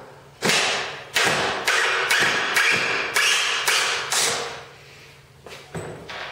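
Cordless drill/driver driving a screw into an MDF sled base in about eight short bursts, roughly two a second, each starting sharply and fading, stopping about four and a half seconds in. The screw is not drawing the fence down as wanted; the wrong screws are being used.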